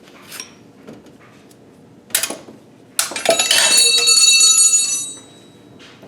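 A metal object clanks and rings out like a bell for about two seconds, with several high tones fading together. A lighter metallic clink comes just before it.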